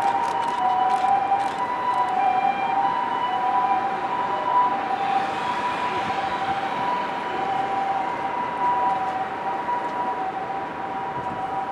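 Japanese ambulance siren sounding its two-tone "pee-poh", switching back and forth between a higher and a lower steady pitch over the hum of city traffic, growing slightly fainter toward the end.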